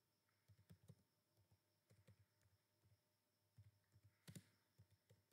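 Faint computer keyboard typing: a scattering of soft key clicks, irregular, with the loudest few a little past four seconds in.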